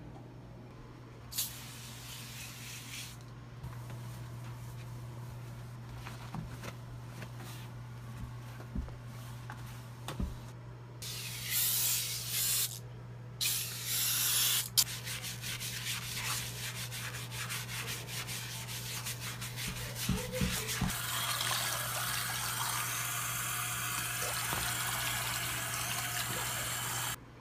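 Bathroom sink being cleaned: a few short hissing bursts, then scrubbing with quick scratchy strokes in the basin, and near the end a steady rushing pour of fizzy soda into the sink, all over a steady low hum.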